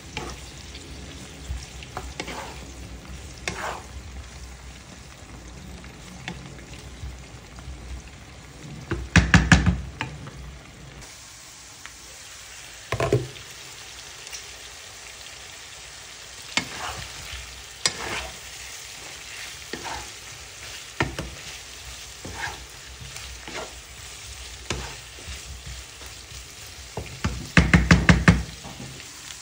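Chunks of meat and diced onion sizzling in a nonstick frying pan while a wooden spatula stirs and scrapes them, with scattered knocks of the spatula against the pan. Twice, about nine seconds in and near the end, a quick run of louder knocks as the spatula strikes the pan several times in a row.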